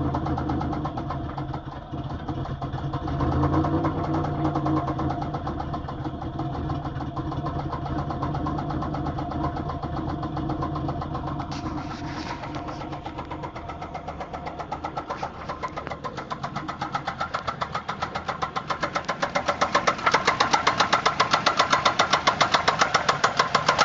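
A 3800 V6 (a topswapped L26 with an XP cam) in a Grand Prix GTP running with a rhythmic knock that grows louder and sharper over the last third: the knock of a spun bearing.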